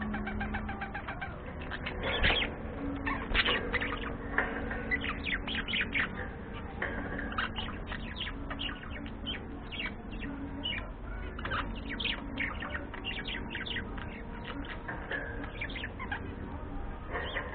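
Budgerigars chirping and chattering: a continuous stream of short, quick chirps.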